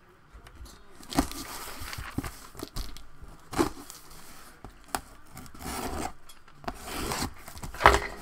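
A cardboard shipping box being cut open with a small blade: scraping and tearing along the packing tape and cardboard in several short strokes, with a few sharp knocks.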